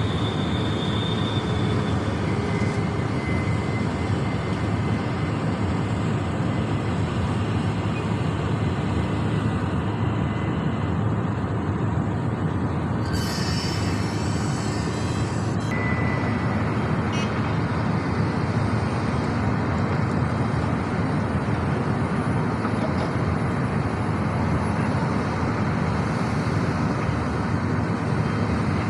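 SANY SY365H hydraulic excavator's diesel engine and hydraulics working steadily under load. A sharp hiss of about three seconds comes a little before the middle.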